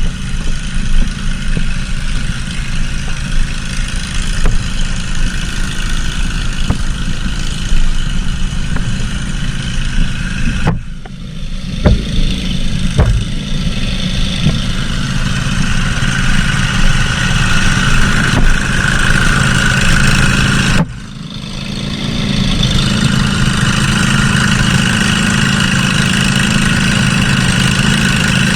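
Mud mower's small engine running under load, its sound dropping off suddenly twice, about a third and about two thirds of the way through, and then coming back up. A few sharp knocks come just after the first drop.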